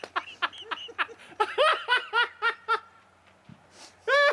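High-pitched laughter in quick, even 'ha-ha' bursts, about four a second, with a short lull before it starts up again near the end.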